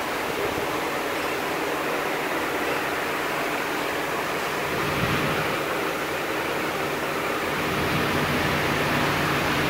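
Steady rushing workshop noise, with a low hum that grows slightly louder near the end.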